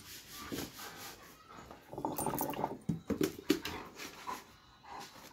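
Doberman pinscher close to the microphone making a few short throaty vocal sounds, the longest about two seconds in, with sharp clicks in between.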